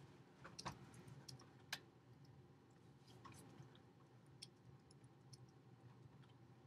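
Near silence: room tone with a faint low hum and a few faint, scattered clicks.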